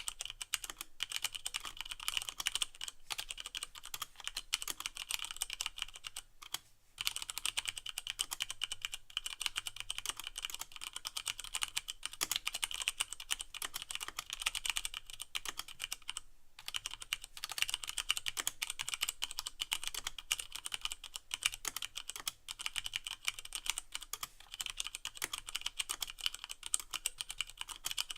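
Continuous fast typing on a Leopold FC660M mechanical keyboard with Cherry MX Brown switches and no O-rings, so each keystroke bottoms out with a clack. Two brief pauses, about six and a half and sixteen and a half seconds in.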